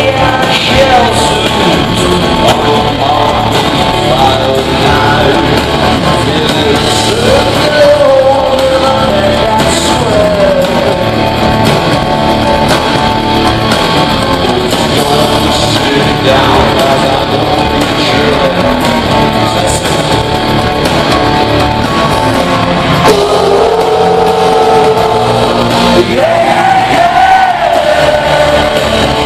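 Rock band playing live in a large arena: electric guitar and drums with singing, loud and continuous, with the echo of the hall.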